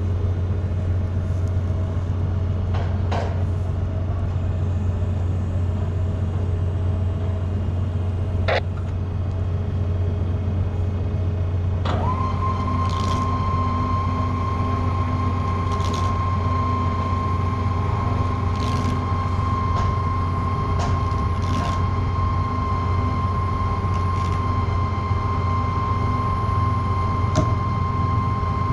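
Steady low hum of a large ship's machinery. A steady high-pitched whine joins about halfway through, with a few faint clicks scattered across it.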